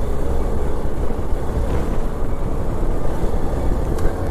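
Motorcycle engine running steadily while riding along a road, with wind noise on the microphone.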